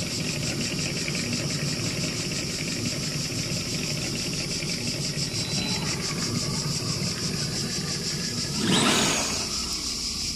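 Steady high-pitched buzzing of insects with a low rumble under it; about nine seconds in, the RC truck pulls away over loose gravel in a short rush of motor and tyre noise.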